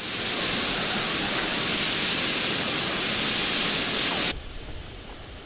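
A loud, steady rushing hiss that cuts off suddenly a little over four seconds in, leaving a much fainter hiss.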